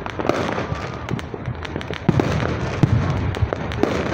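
Aerial fireworks display going off: a dense, irregular run of bangs and crackling pops, the loudest bang about two seconds in.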